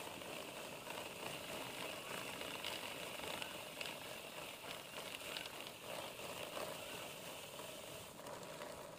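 Faint scrubbing of a plastic three-sided chain brush on a KTM RC's drive chain as the rear wheel is turned, with light clicking from the chain links.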